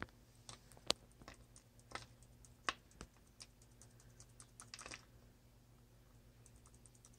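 Faint, irregular light clicks and ticks as bits of soil and bark from an isopod culture tip out of a small plastic cup onto a dry magnolia leaf, with the cup and crisp leaf handled, a small flurry of clicks about five seconds in.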